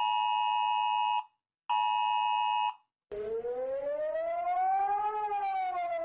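iPhone emergency alert tone: two steady, harsh two-pitch blasts of about a second each, with a short gap between them. After a brief silence a civil defence siren starts, slowly rising in pitch and then falling again: Singapore's public warning siren.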